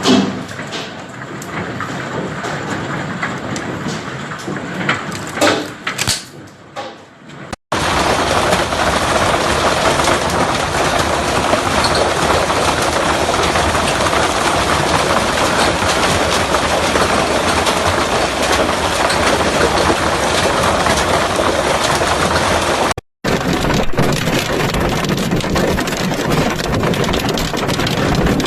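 Hailstorm: heavy hail and rain pounding down as a dense, steady roar, with scattered sharp hailstone knocks in the first few seconds. Three separate recordings are cut together, with breaks about a quarter and about four fifths of the way through.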